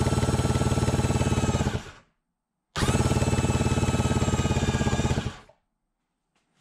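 Kawasaki 1100 three-cylinder two-stroke jet-ski engine being cranked over on its electric starter, switched directly at the starter relay. Two bursts of cranking, each a fast, even pulsing under a steady starter whine: the first stops about two seconds in, and the second starts about a second later and runs for nearly three seconds.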